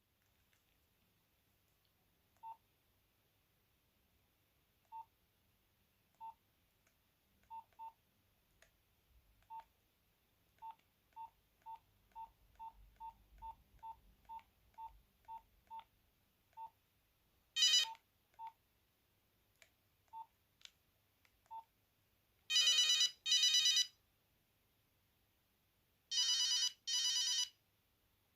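Nokia 8210 keypad beeps: about twenty short, same-pitched beeps as its buttons are pressed, coming quickly in a run through the middle. A brief loud buzzy tone comes from the phone about two-thirds in, and two pairs of longer, louder buzzy tones come near the end.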